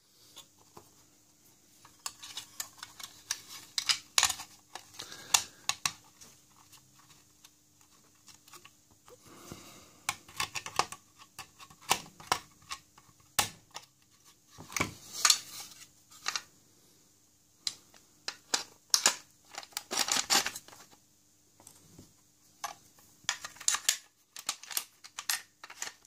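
Irregular metal clicks, clinks and scrapes of an old steel rim lock being reassembled by hand, its cover plate fitted onto the case and its parts handled, coming in clusters with short pauses between.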